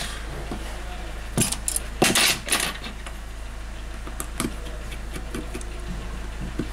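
Small clicks and clatter of an opened smartphone and a precision screwdriver being handled on a repair mat, loudest in a quick run of clicks about two seconds in, then lighter ticks as the screwdriver works a screw. A steady low hum runs underneath.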